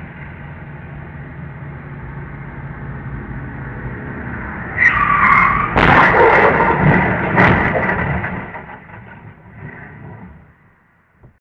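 Tyres screeching for about a second, then a loud crash as a pickup truck and a sedan collide, a second impact about a second and a half later, and the noise of the wreck dying away over the next few seconds. A steady rumble of approaching traffic builds before the skid.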